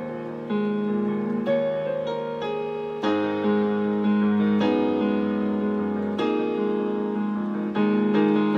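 Electronic keyboard with a piano sound playing a slow solo piece: sustained chords, a new one struck every second or so and left to ring.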